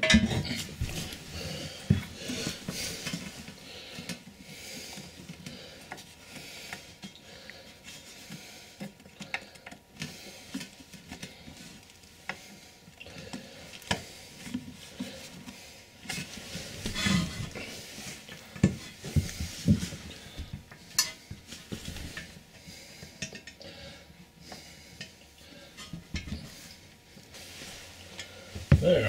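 Porcelain toilet bowl being set down and shifted on a tile floor: irregular scrapes, clinks and knocks as it is worked into place over the flange bolts. The loudest clatters come at the very start, in a cluster a little past the middle, and again near the end.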